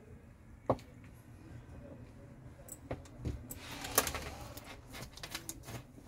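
Small clicks and rattles of wires and alligator-clip test leads being handled: a sharp click under a second in, a dull knock around three seconds in, and a cluster of rattling clicks with rustling around four seconds in.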